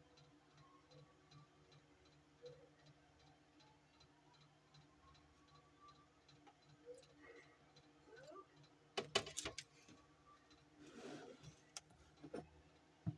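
Faint, regular ticking, about two ticks a second, in a quiet room. About nine seconds in comes a quick run of louder clicks and clatter, then a short rustle and a few more sharp clicks near the end.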